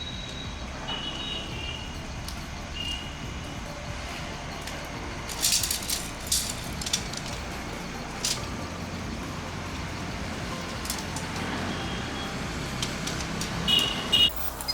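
Steady hiss of light rain over a low background rumble, broken by a handful of sharp clicks and rustles between about five and eight and a half seconds in, with a few short high chirps near the start and the end.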